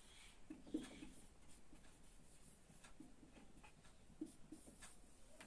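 Faint strokes and taps of a marker pen writing on a whiteboard.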